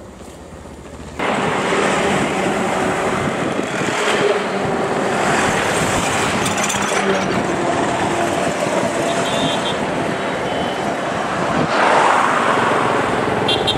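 Wind rush and engine and road noise from riding a motorcycle along a busy highway, with passing traffic. It starts abruptly about a second in, after a quieter road ambience.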